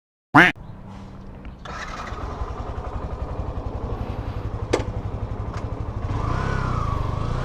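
Motorcycle engine starting and then idling with an even pulsing beat. It is preceded by a short, loud rising chirp. Near the end the engine gets louder, with a brief rise and fall in pitch.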